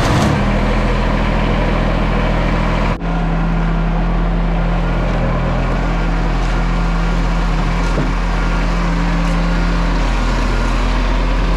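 John Deere 755 compact tractor's diesel engine running steadily, with a brief dip about three seconds in.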